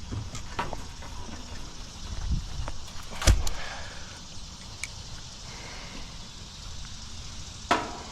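Scattered clicks and metal knocks of tools and parts being handled, with a loud knock about three seconds in and another near the end, over a low rumble.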